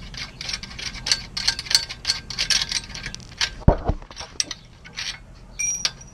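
Ratchet wrench clicking quickly, about five or six clicks a second, as a bolt is turned. About halfway through, two heavy thuds are heard, then a few loose clicks and a short ringing metal clink near the end.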